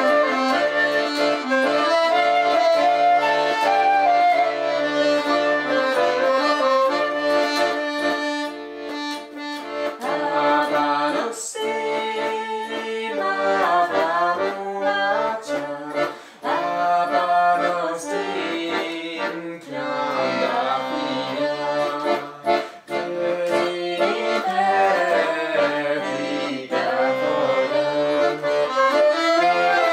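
Piano accordion playing a song tune, joined by a flute at first; from about ten seconds in a woman sings the melody over the accordion for some fifteen seconds, then the accordion carries on alone near the end.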